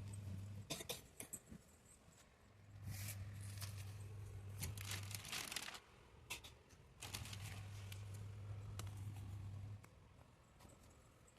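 LG semi-automatic washing machine's wash motor humming in spells of two to three seconds with short pauses between, as in a wash cycle, with clicks and crinkly rustling over it.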